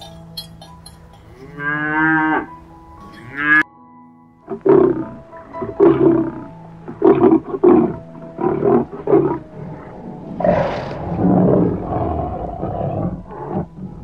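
A cow moos near the start. From about four seconds in, a lioness gives a series of short, deep grunting calls, roughly in pairs, followed by a longer roar about ten seconds in. Soft background music with held tones plays throughout.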